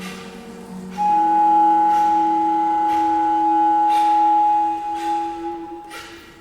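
Contemporary ensemble music: two long, steady wind-instrument tones held together, one high and one lower, entering about a second in and fading near the end. Soft clicks fall about once a second throughout.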